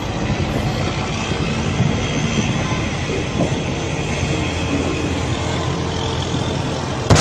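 A steady, even mechanical rumble with a few faint steady tones and no bang or sudden impact.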